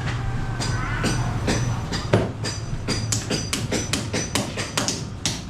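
Rapid metallic tapping, a hammer striking metal, repeated many times and coming faster, to about three or four strikes a second, over a low steady hum.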